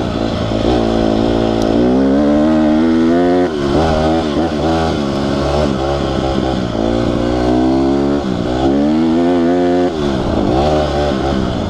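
Honda CRF150R dirt bike's single-cylinder four-stroke engine running hard under acceleration, its pitch climbing and then dropping sharply about three and a half seconds in, again near eight seconds and near ten seconds, before climbing again.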